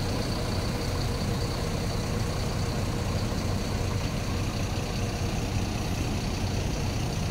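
Mercedes-Benz OH 1626 coach's rear-mounted six-cylinder diesel engine idling steadily, with a faint steady high whine over the low rumble.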